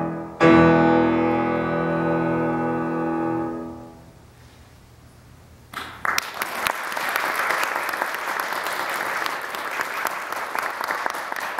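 Grand piano's final chord struck and held, ringing for about three seconds before it dies away. After a short hush, audience applause starts about six seconds in and carries on.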